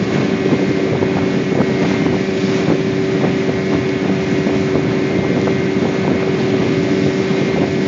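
A small boat's motor running steadily with a constant hum, with wind buffeting the microphone.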